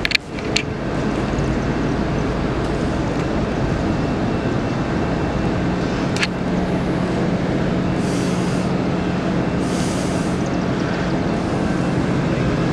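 Freight train cars rolling past on the rails, a steady rumble with a low hum, with two short hisses about eight and ten seconds in.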